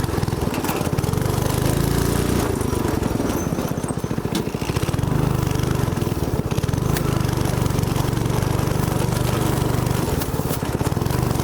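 Go-kart's small engine running steadily with a fast, even pulse and a low hum.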